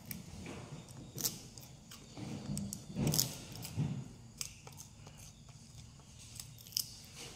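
Plastic snack packets rustling and crinkling in handling, with crunching as crisps are eaten: scattered short crackles and clicks, a little louder about three seconds in.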